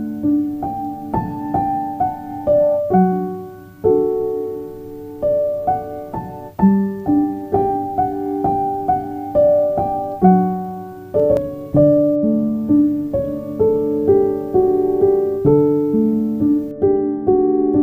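Piano music: a melody of single struck notes that each ring and fade, over lower chord notes.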